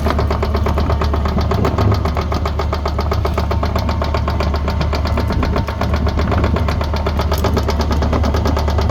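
JCB 86C-2 excavator's diesel engine running steadily while its raised right-hand crawler track is driven round, with a fast, even clatter throughout. The track is being run off the ground to check it for noises and play.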